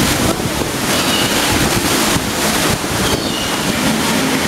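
Loud, steady rushing of water around a ride boat in a dark-ride flume, a dense hiss that briefly thins a couple of times.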